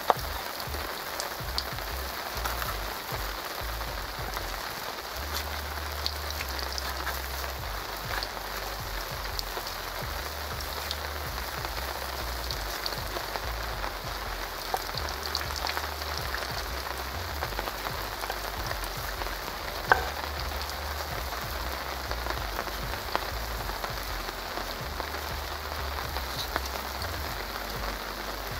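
Steady rain falling on surrounding surfaces, with scattered sharp ticks and one louder click about twenty seconds in.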